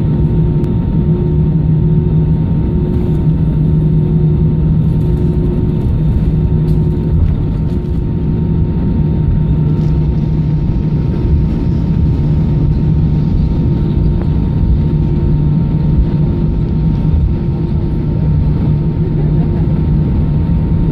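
Airbus A319 cabin noise while taxiing: a steady drone of the jet engines at low thrust, with a steady low hum and a fainter high tone over it.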